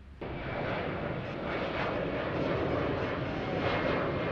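Jet airliner passing overhead in its climb after takeoff, its engines giving a steady roar that cuts in suddenly just after the start.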